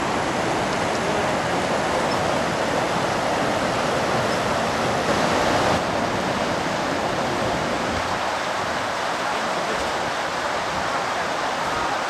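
Steady rushing of the Beas river's rapids: fast water running over rocks.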